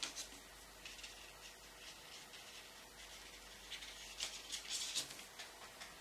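Oil paint brush strokes on the painting surface: a series of short, faint, dry scratches, busiest about four to five seconds in.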